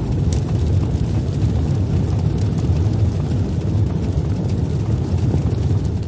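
Intro-animation sound effect: a steady deep rumble trailing on from a boom.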